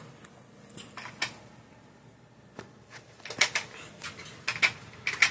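Irregular light clicks and taps, a few about a second in and a quicker cluster near the end, over a quiet background.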